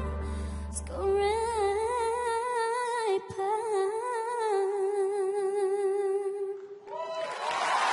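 A young girl singing solo into a handheld microphone, holding long wavering notes over a soft, low backing that fades out partway through.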